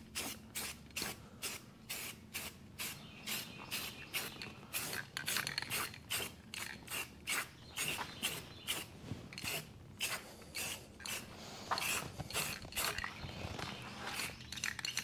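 Aerosol spray-paint can being shaken, the mixing ball inside clacking in a steady rhythm of about three rattles a second.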